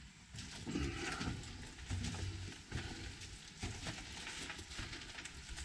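Footsteps and scuffing on a gritty concrete floor, a string of uneven thuds as people walk through an underground shelter.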